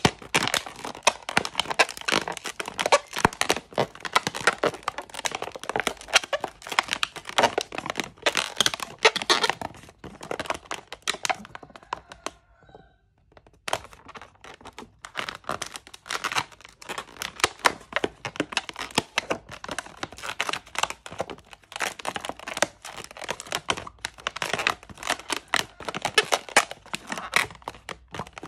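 Inflated latex modelling balloons squeaking and rubbing as they are twisted and squeezed by hand: a dense, irregular run of short rubbery squeaks and crinkles, with a brief pause a little before halfway.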